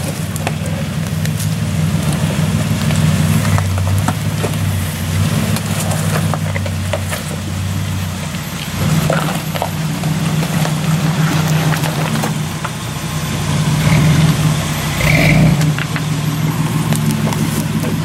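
Ford Explorer's engine running at low speed as it crawls over rocks and roots, the throttle swelling now and then, with a few short knocks.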